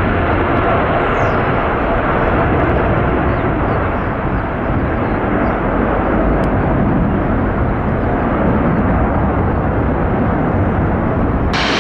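Airplane noise: a loud, steady roar of engines and rushing air with a faint steady whine in it. Just before the end a brighter hiss comes in.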